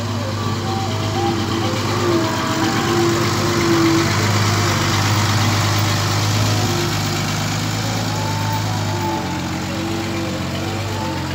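Diesel engine of a loaded dump truck running at low speed as it drives past close by, a steady low engine note that swells for a few seconds and then eases slightly.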